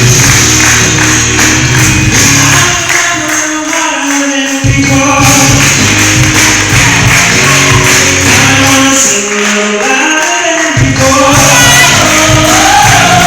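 Live gospel music: a tambourine shaking along with the band, and a singer's voice coming in more strongly toward the end.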